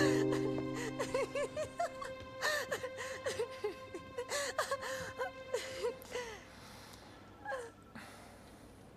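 A woman laughing: a long string of short rising-and-falling ha-ha's that die away about six seconds in. A held music chord fades out just after the start.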